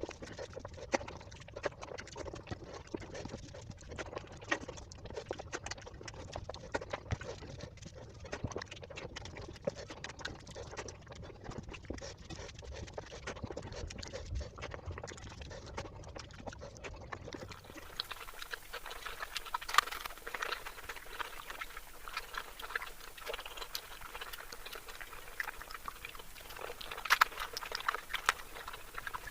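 Close-miked eating sounds: chewing and wet mouth smacks from a person eating spicy egg curry with basmati rice, a steady run of small clicks. About 17 seconds in, the sound changes abruptly: the low rumble drops out and the clicks turn sharper and brighter.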